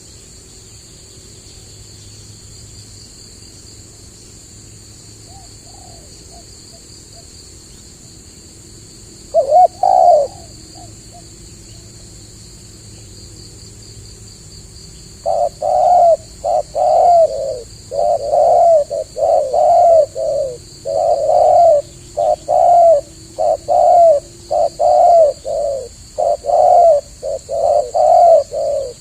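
Spotted dove cooing: a faint call about five seconds in, a short loud coo near ten seconds, then from about fifteen seconds a long unbroken run of repeated coos. A steady high insect drone runs underneath.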